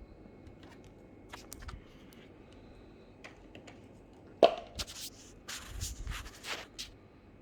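Hands handling a die-cast model car and its packaging: scattered small clicks, one sharp knock about four and a half seconds in, then a few seconds of rustling.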